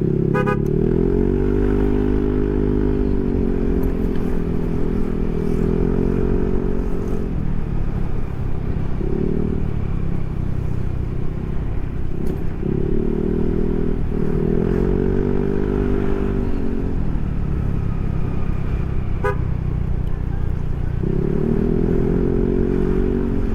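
Yamaha NMAX scooter's single-cylinder engine running through a Proliner SR Neo Silent aftermarket exhaust while riding: the exhaust note rises in pitch as the throttle opens and then holds steady, four times over, easing back in between.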